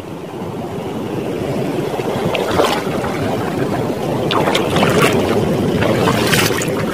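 Fast-flowing muddy floodwater rushing steadily, with a few sharper splashes about two and a half, four and a half and six seconds in.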